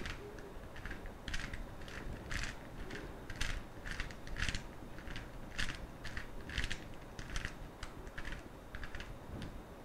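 Plastic layers of a hand-held 5x5 speed cube being twisted, giving irregular clicks and clacks about one or two a second.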